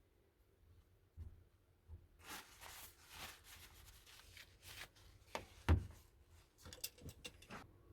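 Faint handling sounds of someone working on a hand tool: irregular rustling and scattered light clicks, with one sharper knock about two-thirds of the way through.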